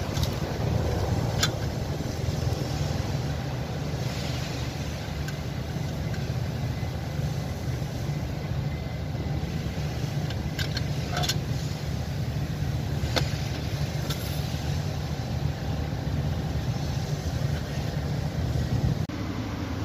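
A steady low mechanical drone, with a few sharp clicks.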